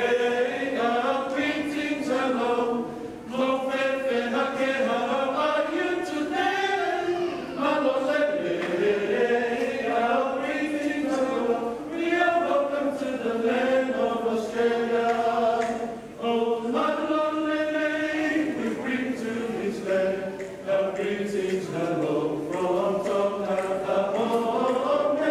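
A family group of men, women and children singing a song together as a choir.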